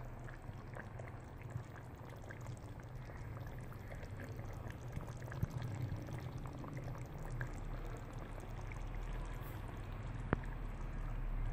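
Creamy chicken white handi gravy simmering in a metal karahi on the stove, with a scatter of small bubbling pops over a steady low hum, and one sharper click near the end.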